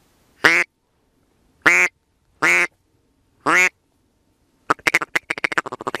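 Loud, close duck quacking: four drawn-out quacks about a second apart, then a fast run of short quacks near the end.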